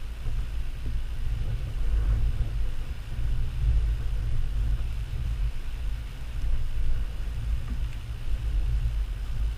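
A low, uneven rumble that swells and fades throughout, with little else audible above it.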